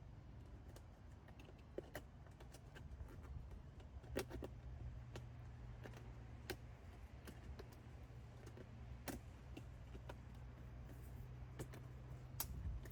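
Scattered light clicks and taps of stiff plastic shoe-box panels and corner flaps being folded and snapped into their grooves, over a faint steady low hum.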